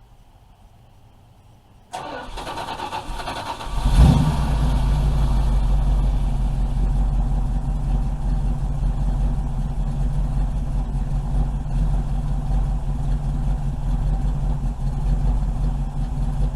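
A 1985 Dodge D150's 408 stroker V8, fuel-injected by a Holley Sniper throttle body, being started: the starter cranks about two seconds in, the engine catches with a loud rev about two seconds later, then settles into a steady idle.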